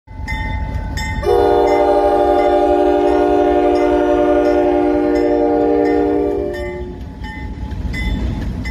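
Diesel locomotive's multi-chime air horn sounding one long blast of about five seconds over the low rumble of the train, its notes dropping out one by one as it shuts off. Regular ringing strikes are heard before and after the horn.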